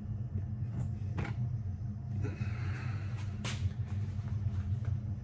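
Black rubber gloves being pulled off and handled, giving a few short rubbery snaps and a brief scratchy rustle about halfway through, over a steady low electrical hum.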